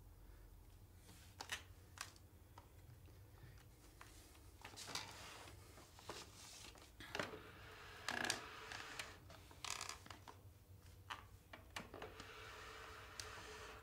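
Faint rustling and scattered small clicks and taps from a person shifting on a chair at a desk, with clothing brushing and the chair and desk shifting. The rustling comes in several longer patches and the clicks fall at irregular times.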